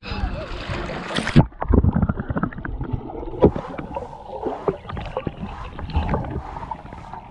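Swimming-pool water heard through a camera that goes under the surface about a second and a half in: splashing at the waterline, then muffled underwater bubbling and gurgling with scattered knocks as children dive and swim close by.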